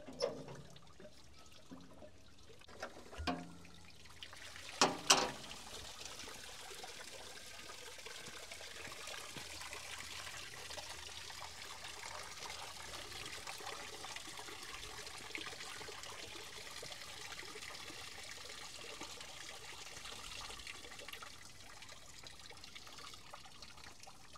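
Coolant water draining from the loader's disconnected heat-exchanger hoses, trickling steadily into a catch container. A few metallic knocks come in the first seconds, the loudest a pair about five seconds in, and then the steady flow runs on, easing slightly near the end.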